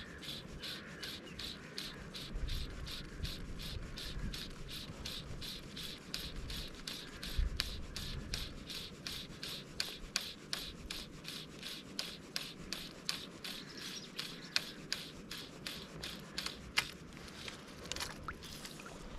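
Fly line being pulled in by hand in a steady retrieve, a short rasp of line through the fingers about three times a second. Low wind rumble on the microphone swells now and then.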